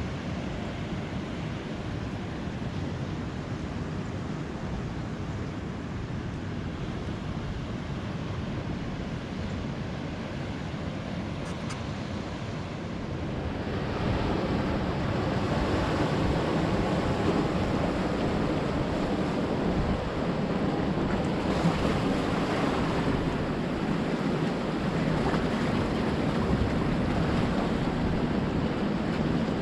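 Ocean surf washing onto the beach, a steady roar of waves with wind on the microphone; the surf grows louder about halfway through.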